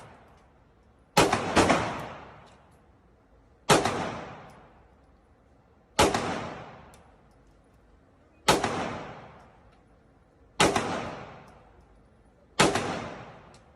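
Gun firing single shots: seven sharp reports, two close together near the start and then one about every two seconds. Each shot is followed by a long echoing decay.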